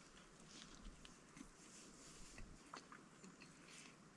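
Faint chewing of a mouthful of chicken BLT sandwich, with soft scattered clicks of the jaw and mouth.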